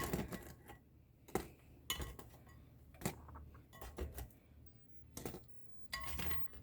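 A kitchen utensil clicks and knocks against an air fryer basket and plate as cooked chicken nuggets are lifted out one at a time. The knocks are light, sharp and irregular, about a second apart.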